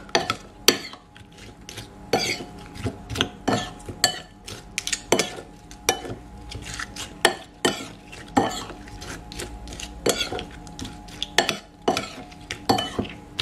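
A metal spoon stirring sliced shallots, garlic and bay leaves in olive oil in a bowl. It clinks and scrapes against the bowl again and again at an uneven pace, some clinks ringing briefly.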